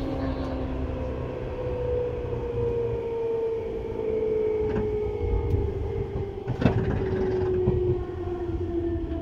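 Seibu 2000 series electric train heard from inside the car: the motor and gear whine falls steadily in pitch as the train slows, over a low rumble of wheels on rail. A few sharp clacks from the wheels over rail joints come in the second half.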